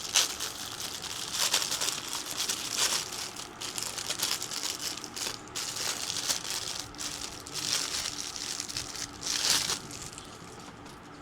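Plastic packaging crinkling and rustling in irregular handfuls as a squishy toy is unwrapped. The crinkling dies down about ten seconds in.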